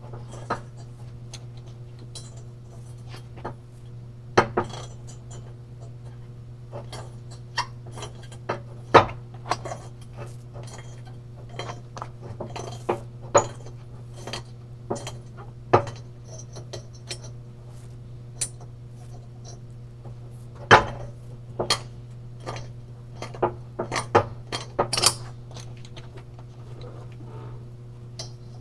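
Irregular metallic clinks and knocks of hand tools working on an aluminum cylinder head on a steel table, with a couple of louder clanks, over a steady low hum.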